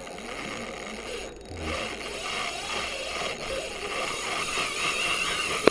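Steady rushing of a fast river current, with a single sharp click near the end.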